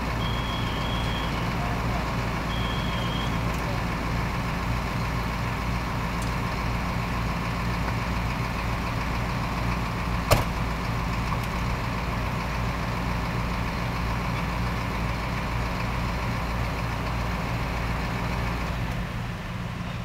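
Fire truck engine running steadily at a constant speed, a low drone. One sharp click stands out about halfway through.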